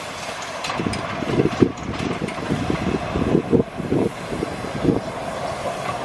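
Steam locomotive moving slowly past at low speed: a steady hiss with uneven low thumps.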